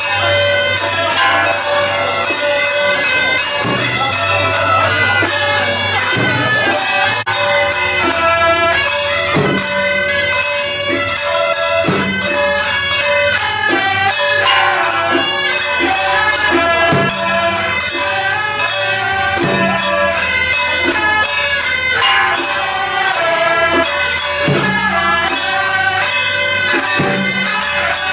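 Traditional Chinese temple music: a reedy suona shawm playing a continuous melody over a steady beat of cymbals and drums.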